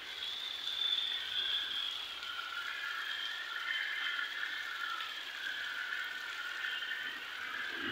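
Monsoon rain falling as a steady hiss, with a wavering high-pitched drone over it.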